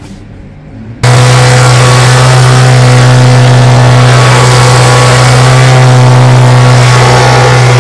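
Handheld leaf blower running steadily at full power, blowing snow off deck steps: a loud, even motor hum over rushing air. It cuts in abruptly about a second in.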